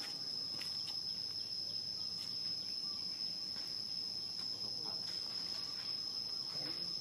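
Insects droning steadily in a single unbroken high-pitched tone, with faint scattered sounds beneath.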